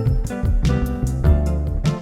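Background music with a steady beat, with bass, guitar and drums.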